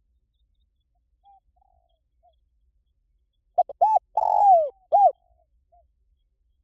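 Spotted dove cooing: a few faint short notes, then about halfway in one loud phrase of short notes, a long coo falling in pitch and a short closing note.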